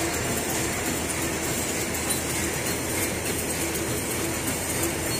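Automatic horizontal flow-wrap packing machine for disposable plastic cutlery running at steady production speed, a continuous even mechanical running noise.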